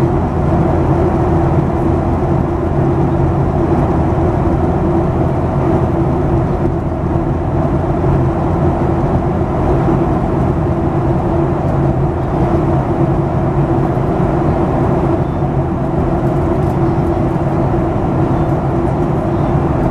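Steady cabin noise of a Boeing 737-800 in flight, heard from inside the cabin: the CFM56-7B turbofan engines' drone mixed with rushing airflow, a steady low hum over an even rush.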